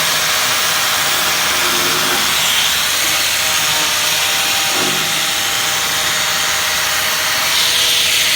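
Angle grinder running steadily at full speed: a constant high hiss with a steady whine.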